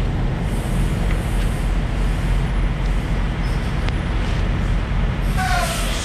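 Semi-truck diesel engine idling, a steady low rumble.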